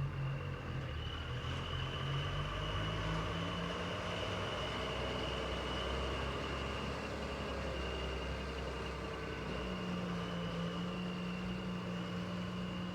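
JCB 3DX backhoe loader's diesel engine running under varying load, its note shifting and stepping up to a higher steady pitch about ten seconds in, with a thin steady high whine throughout.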